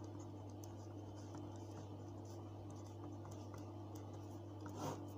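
Faint scratching and ticking of a pen writing and drawing lines on paper, over a steady low electrical hum.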